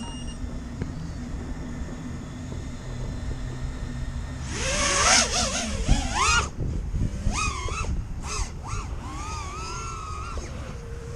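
FPV quadcopter's brushless motors whining, the pitch rising and falling sharply as the throttle is punched and cut, starting about four and a half seconds in after a steady low rumble.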